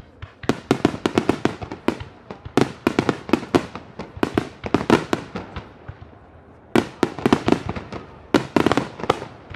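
Aerial firework shells bursting in quick volleys, many sharp bangs in close succession. They come in three bursts of activity with short lulls at about two and a half and six seconds in.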